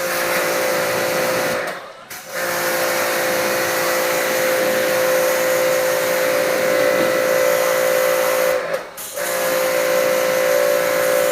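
Electric pressure washer spraying a water jet during an aircon deep clean: a steady loud hiss over the washer motor's hum, cutting off briefly twice, about two seconds in and again near nine seconds, as the trigger is released.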